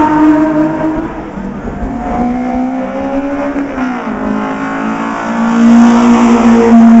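Race car engines under hard acceleration as cars pass. The engine note falls away at first, then climbs, drops sharply about four seconds in at a gear change, and climbs again.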